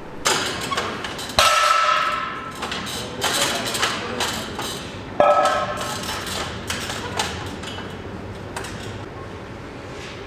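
Gym weights clanking: a run of metallic knocks and clinks, with two loud clangs about a second and a half and five seconds in that ring briefly, as of a steel barbell and its plates striking. The knocks thin out in the last few seconds.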